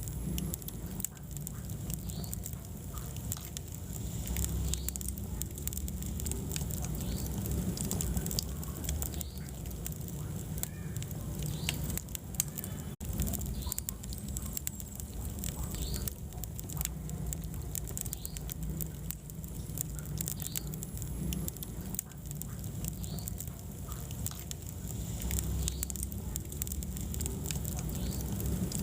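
Wood fire burning in a fireplace, crackling with frequent small, irregular pops over a low, steady rumble of the flames.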